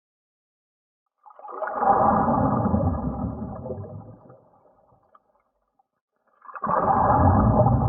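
Underwater bubbling and gurgling, muffled with no hiss. It comes in two bursts of about three seconds each: the first begins just over a second in and fades away, and the second begins near the end. There is dead silence before and between them.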